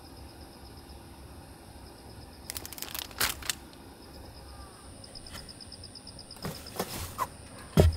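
Plastic packaging crinkling as a wrapped food packet is set down on a wooden table, then knocks and a loud low thud from a wooden storage-box lid being lifted and handled near the end. A faint insect trill runs underneath.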